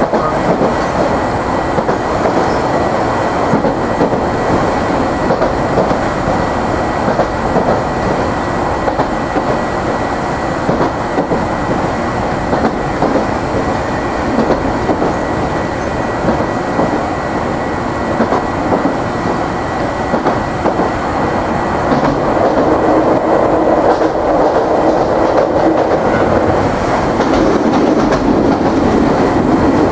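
Hiroshima Electric Railway 3700-series resistance-controlled tram running along the line: a steady rumble of wheels on rail with a faint steady high tone, the traction motor barely audible. The running noise gets louder about two-thirds of the way through.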